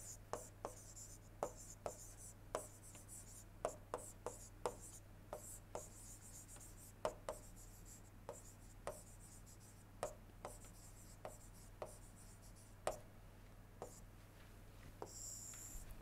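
A stylus writing on a tablet: a string of faint, irregular taps and light scratches as words are handwritten, then a longer scratch near the end as a line is drawn under them. A low, steady electrical hum runs beneath.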